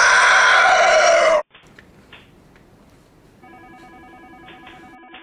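A loud, shrill screeching cry, rising then held, that cuts off abruptly about a second and a half in. About three and a half seconds in, a telephone starts ringing faintly with a warbling electronic ring.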